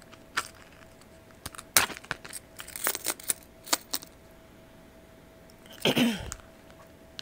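Metal keys clinking and jangling as they are worked onto the stiff metal rings of a key case, in a handful of separate light clicks. A short louder noise with a falling pitch comes about six seconds in.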